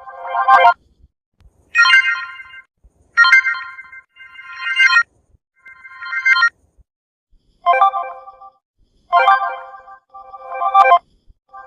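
Samsung phone notification tones: about eight short electronic chimes, each under a second, one after another with brief gaps. The middle chimes are higher-pitched than the first and the last few.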